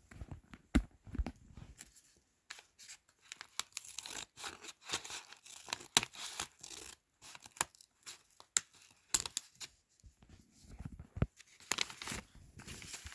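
A fidget toy blind bag being torn open and handled, its packaging crinkling with irregular sharp crackles and tearing sounds.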